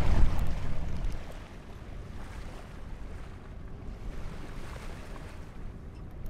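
Wind rumbling on the microphone over the wash of water along the hull of a sailboat under way. Louder for about the first second, then a steadier, quieter rush.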